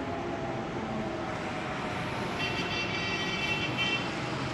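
Distant road traffic, with a vehicle horn sounding for about a second and a half in the middle.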